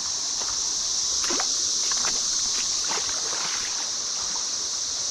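Steady high drone of a cicada chorus, with irregular crunching steps on creek gravel.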